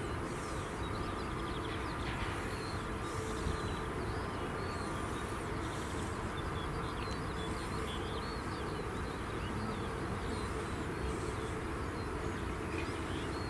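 Small birds chirping here and there over a steady low background rumble.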